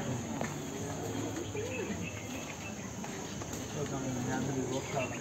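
Steady, high-pitched insect chirring, with faint voices underneath.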